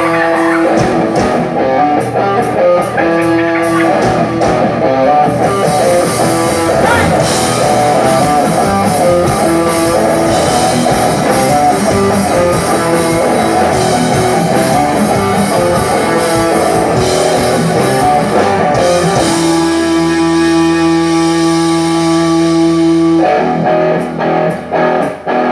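Live rock band playing a song, with guitar to the fore over bass and drums. A chord is held for several seconds past the middle, then gives way to short, choppy hits near the end.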